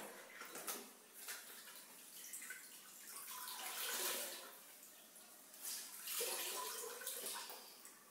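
Wet mop being dunked and worked in a plastic mop bucket: water sloshing, splashing and dripping back into the bucket, in two main surges about four and six seconds in.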